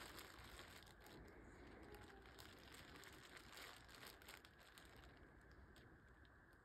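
Faint crinkling and rustling of a black plastic trash bag being handled by hand, with scattered small crackles.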